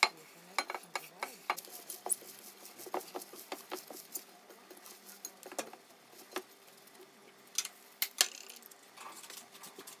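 Irregular clicks, taps and rustling as shredded napa cabbage is scraped off a wooden cutting board into a bowl with a knife and pushed around in the bowl by hand. There is a faint steady hum underneath.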